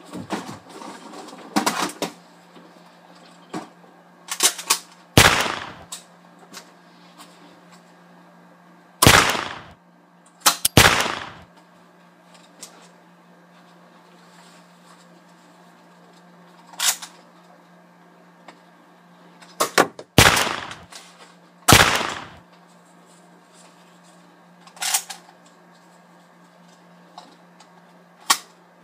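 Gunshots in an irregular series of single shots, each a sharp crack with a short echoing tail. The loudest come about 5, 9, 11, 20 and 22 seconds in, with fainter shots in between.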